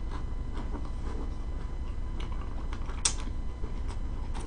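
Soft clicks and smacks of a person chewing food close to the microphone, scattered irregularly over a low steady hum, with one sharper click about three seconds in.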